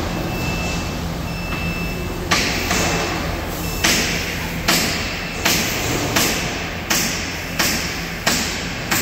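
Double-mast aluminium aerial work platform lowering. Its drive hums steadily with a short beep about once a second, then from about two seconds in sharp metallic clacks come at an even pace, roughly one every three-quarters of a second.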